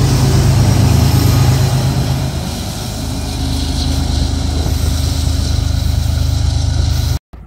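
BNSF diesel-electric locomotive's engine running with a steady low drone as it passes close and then pulls away, dropping somewhat in level after about two and a half seconds, over the hiss of the train rolling on the rails. The sound cuts off suddenly near the end.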